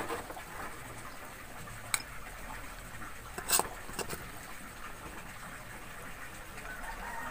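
Metal spatula scraping and scooping dry fried tempeh relish out of a wok into a glass bowl, the crumbly tempeh rustling softly. A few light clinks of the spatula against the wok or bowl come about two, three and a half and four seconds in.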